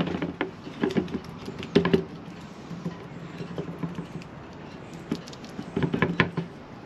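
A small pad being rubbed and scraped by hand around the inside of a mould, with light knocks. The sounds come in short bursts at the start, at about one and two seconds in, and again near the end.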